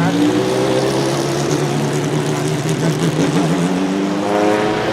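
GT1-derived race car engine running at steady, moderate revs, with its pitch rising slightly near the end.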